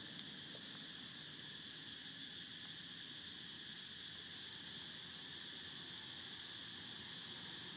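Steady insect chorus, a high, even drone held without change, with a faint click just after the start.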